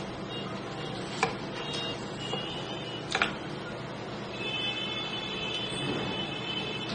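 A stainless steel V-blade carving knife cutting into a cucumber, with two sharp clicks, about a second in and about three seconds in, over a steady background hiss.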